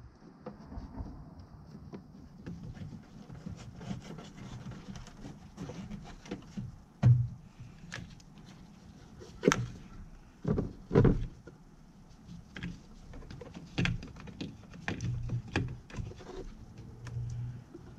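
Scattered knocks, taps and rustling as a cable is handled and routed around plastic engine-bay parts, with the loudest knocks about seven, nine and a half and eleven seconds in.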